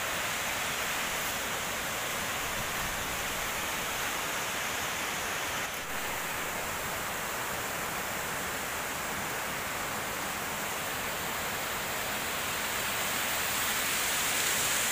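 Steady rushing of Khandadhar Falls, a tall waterfall, growing slightly louder near the end.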